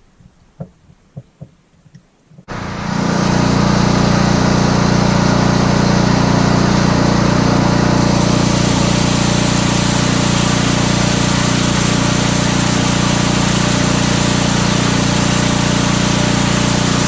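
Ariens Path Pro snowblower engine starting about two and a half seconds in and then running loud and steady, with no rise and fall in speed: the surge is cured now that the clogged jet behind the carburetor's red plug has been cleaned out. A few light clicks come before it starts.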